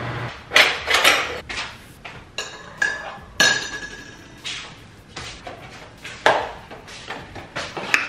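Kitchen clatter: a run of separate knocks and clinks of a ceramic mug and metal spoon on a counter, two of them about three seconds in ringing briefly. A low steady hum stops just after the start.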